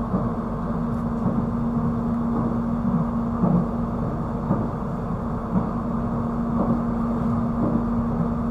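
Airport electric train running at speed, heard inside the carriage: a steady rumble with a constant low hum and a few light knocks.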